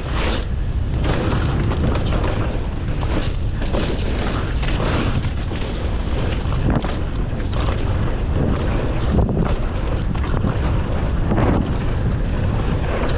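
Mountain bike riding fast down a dirt trail: a steady wind rumble on the microphone, with tyre noise and frequent knocks and rattles from the bike over bumps.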